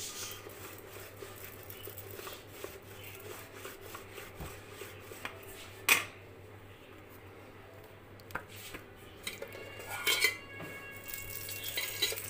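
Stainless-steel rolling pin rolling out methi paratha dough on a floured granite counter: soft rubbing and light clicks, with one sharp knock about six seconds in and a short clatter of clinks around ten seconds.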